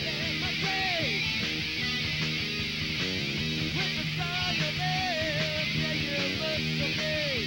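Live rock band playing an instrumental passage: a lead electric guitar plays a melody with bent and sliding notes over bass and drums.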